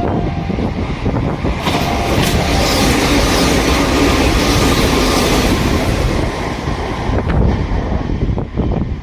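Electric train running past at speed: a rushing noise of wheels and air that swells about one and a half seconds in, holds for some six seconds with a low hum under it, and dies away near the end.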